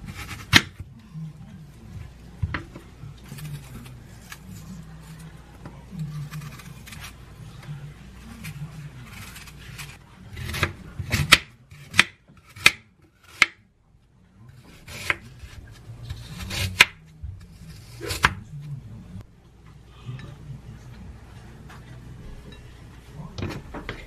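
Kitchen knife cutting through an apple on a wooden cutting board, the blade knocking on the board with each cut. There is a quick run of thin slicing strokes around the middle.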